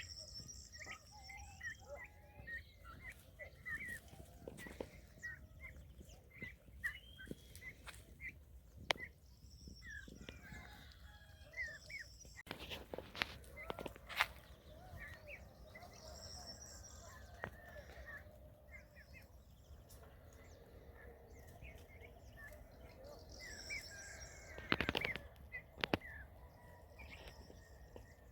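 A flock of farm poultry at a feed of wetted grain, chirping and clucking constantly. A higher call repeats every several seconds, and occasional sharp clicks and taps come through, the loudest cluster about 25 seconds in.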